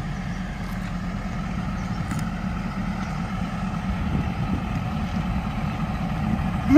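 THN-class diesel railcar's engine running as the railcar pulls slowly away. It is a steady low drone that grows slightly louder. Its horn starts to sound right at the end.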